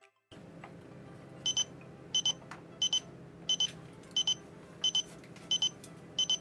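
XREXS large digital wall clock's alarm going off: about a second and a half in, short high-pitched double beeps start, repeating evenly about every 0.7 seconds over a faint steady room hum.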